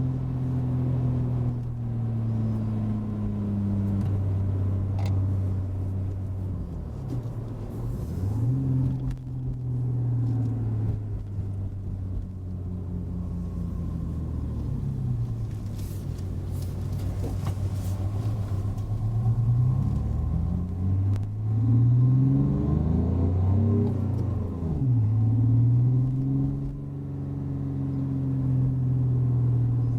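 Renault Clio IV's R-Sound Effect synthetic engine note, played as a clean, even engine tone that follows the revs. It holds a steady drone, dips and climbs again, then rises in several quick sweeps with drops between, like revving up through gears, before falling back to a steady drone near the end.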